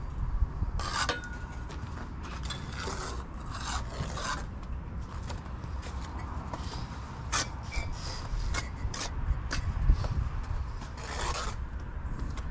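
Steel brick trowel scraping mortar on the bricks, with irregular short scrapes and taps as bricks are laid and tapped down on a wall course, over a steady low rumble.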